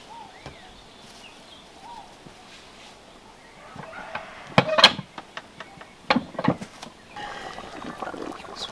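A tortilla press being worked and the plastic sheet peeled off a freshly pressed corn tortilla, giving a few sharp clacks and crinkles about halfway through. Faint hen clucks sound early on, and a denser crackling follows near the end.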